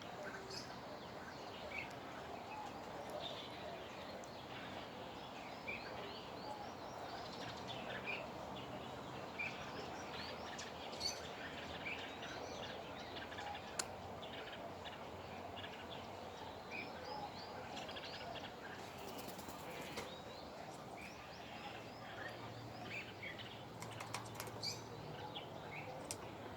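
Birds chirping: many short, separate chirps scattered throughout over a steady background hiss, with a few sharp clicks.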